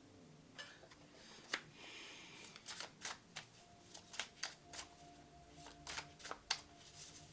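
Tarot cards being shuffled: an irregular run of sharp card clicks and snaps, starting about half a second in and coming faster in the second half.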